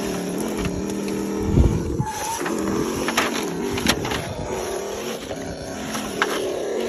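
Multi-axle RC crawler truck's electric drive motor and gearing whining steadily as it crawls over concrete slabs, with knocks and clicks of wheels and chassis on the concrete. The loudest is a thump about one and a half seconds in.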